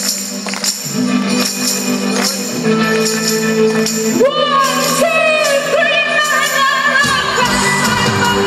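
Live band music heard through a concert PA from the audience: held chords with repeated jingling percussion hits, a voice coming in singing about four seconds in, and a deeper low end filling in near the end.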